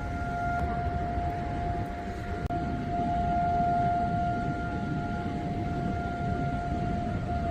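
Civil defense siren holding one long, steady tone over a low background rumble. It is the memorial siren sounded for Israel's fallen soldiers and victims of terror.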